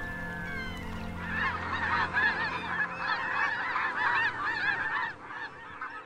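A flock of waterbirds calling: many short rising-and-falling calls overlapping in a dense chorus that starts about a second in and breaks off about five seconds in.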